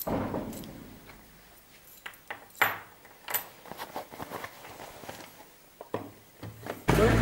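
A sharp knock that rings and fades over about a second, followed by a run of scattered short clicks and knocks. Just before the end it cuts abruptly to loud steady outdoor noise.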